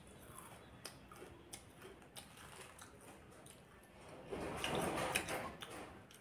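Close-up chewing of a mouthful of crunchy fried dal snack: a scatter of small crisp crackles, then a louder noisy stretch of about a second and a half, around four seconds in.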